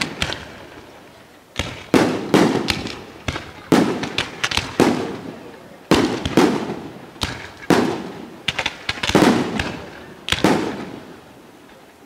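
Bolognese-style fireworks battery: aerial shells and comets launching and bursting in quick volleys, a cluster of two or three sharp bangs every second or two, each cluster trailing off.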